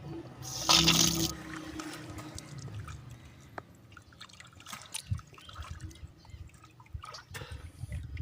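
A loud rush of splashing water about half a second in, then dripping water and scattered light knocks and splashes around a small boat, as a caught octopus is hauled out of the sea.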